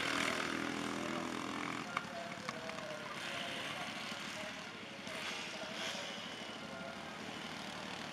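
Engines of racing ride-on lawn mowers running as they lap the track; the nearest one's engine note fades after about two seconds as it passes, leaving the more distant mowers' drone. Two sharp clicks about two seconds in.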